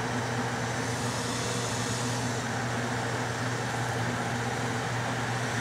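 Bathroom exhaust fan running steadily: a low, even hum under a steady rush of air moving through 3-inch dryer duct.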